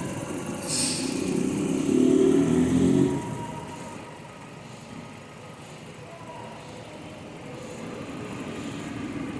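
Four-cylinder engine of a 2014 Nissan Sentra idling steadily while it suffers sporadic misfires. There is a short hiss about a second in and a louder stretch through the first three seconds, after which it settles to a quieter, even idle.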